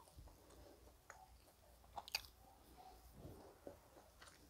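A person chewing tough beef with the mouth closed, faint and close up, with a few soft clicks; the sharpest two come about two seconds in.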